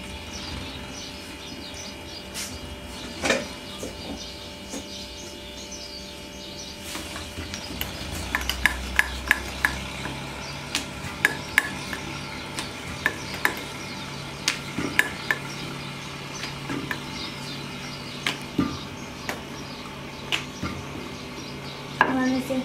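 Wooden rolling pin rolling out paratha dough on a round rolling board, with sharp irregular knocks every half second or so as the pin and board clatter on the stone counter. The knocking starts about a third of the way in, and a short clatter comes near the end as the rolled paratha is lifted off.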